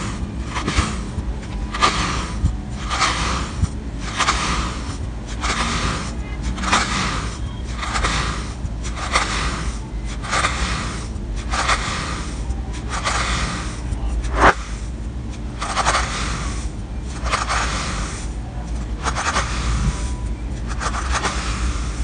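Knife blade slicing thin slices from a block of kinetic sand: a gritty scrape with each cut, about one cut every 0.7 seconds, over a low steady hum. One sharp click about halfway through is the loudest sound.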